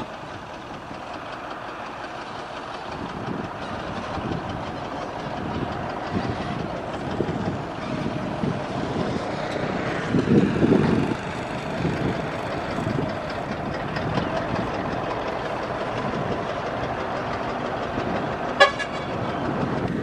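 Diesel engines of a motor grader and road roller running steadily as the grader works loose soil, swelling briefly about halfway through. A short horn beep sounds near the end.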